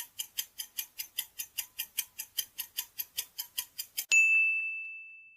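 Quiz countdown-timer sound effect ticking quickly and evenly, about five ticks a second, then a single bell ding about four seconds in that rings out and fades: the answer time running out.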